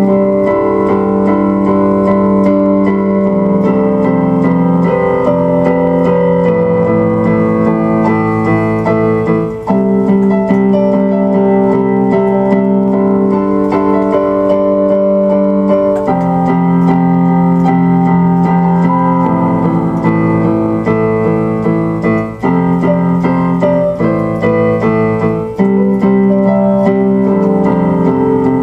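Background music: electric piano playing sustained chords.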